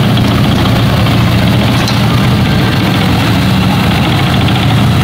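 Military tank engine idling steadily with a low, even rumble.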